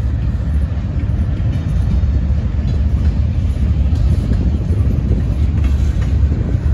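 Freight train cars rolling past close by: a steady low rumble of steel wheels on rail, with a few faint clicks.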